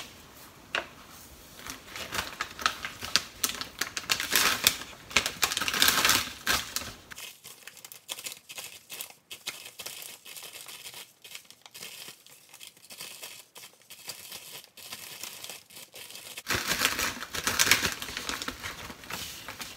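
Handheld sesame grinder being twisted to crush sesame seeds into a plastic zipper bag: a dense run of small crackling clicks, mixed with the bag crinkling. The crinkling is loudest about four to six seconds in and again near the end.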